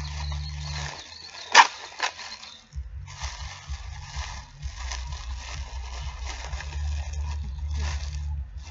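Thin plastic packaging crinkling and rustling as it is handled and peeled open, with two sharp crackles about a second and a half and two seconds in. A low rumble runs underneath, dropping out briefly near the start.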